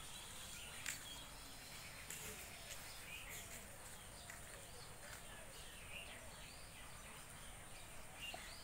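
Faint outdoor background hiss with scattered short bird chirps and calls, and a few brief clicks.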